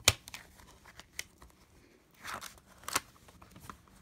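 Plastic DVD case being handled: a sharp snap just after the start, a few lighter clicks, a short paper rustle a little past two seconds as an insert leaflet is handled, then another sharp click around three seconds.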